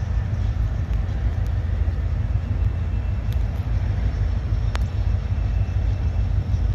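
Diesel freight locomotive approaching slowly, a steady low rumble, with a couple of faint clicks.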